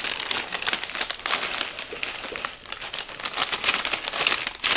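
Plastic bag of frozen whole kernel corn crinkling as it is tipped and shaken over a slow cooker, the kernels falling onto the stew ingredients in a rapid stream of small clicks.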